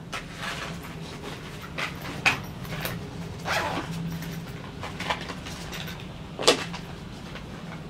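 Makeup products being handled: scattered clicks and knocks as containers are picked up, opened and set down, the loudest about six and a half seconds in, over a steady low hum.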